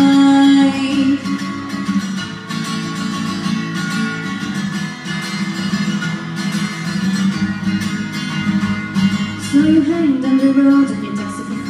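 Live acoustic guitar accompanying a female singer. She holds long notes near the start and again about ten seconds in, with the guitar carrying on between them.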